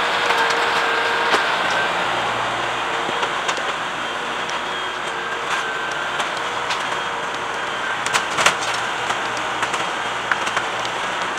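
LS compact tractor's diesel engine running steadily as the tractor moves and works its grapple, with a few sharp knocks about eight seconds in.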